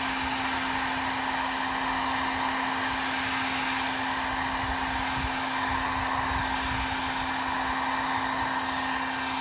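Electric heat gun running steadily: a constant motor hum under the rush of blown air, heating decals so they peel off.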